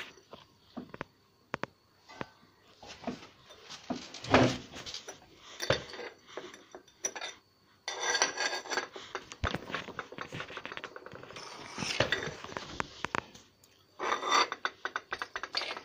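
Pieces of a broken ceramic mug clinking and scraping on a tiled floor as they are handled, in scattered knocks with busier clusters in the second half.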